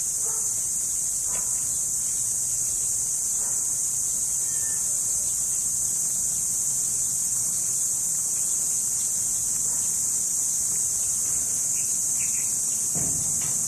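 Crickets chirping in a dense chorus, a continuous high-pitched shrill drone with no break.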